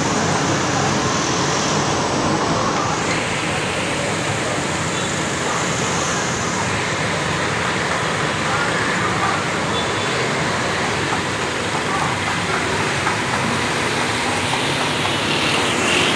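A giant pot of rice boiling hard in oily broth, giving a steady rushing, bubbling noise, while a long-handled ladle stirs through it.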